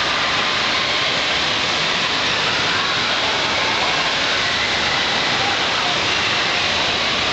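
Steady din of an indoor water park: rushing water from the slides and play structures, with the chatter of a crowd mixed in.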